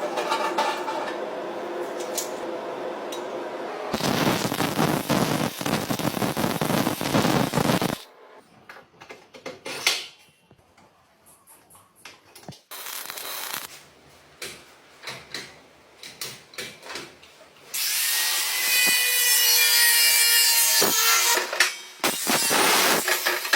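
Workshop tool work on engine parts, in abrupt cut-together stretches. First comes a steady rasping or grinding noise. Then a quiet spell of light scraping and taps. Near the end a loud stretch of rasping with a high squeal.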